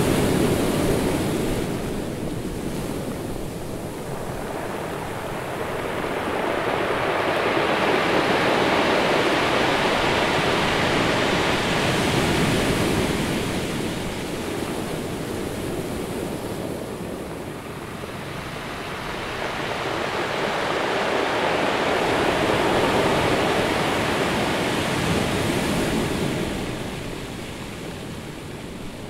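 Ocean surf washing onto a shore: an even rush of water noise that swells and recedes in slow waves several seconds long, three times, and fades lower near the end.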